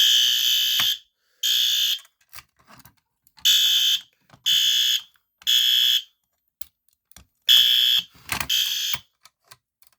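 System Sensor fire alarm horn strobe sounding in loud, shrill horn blasts. The first lasts about a second, and the rest about half a second each, including a run of three evenly spaced ones. A few sharp clicks fall between the blasts.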